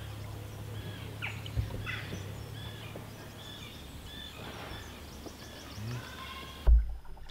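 Songbirds chirping and singing in the riverside trees, many short calls and falling whistled notes, over a low steady hum; a sharp thump near the end.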